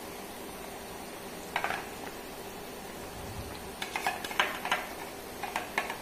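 Thick egg-curry gravy simmering in a pot: a steady hiss with short bubbling pops, a brief cluster about one and a half seconds in and a denser run from about four seconds on.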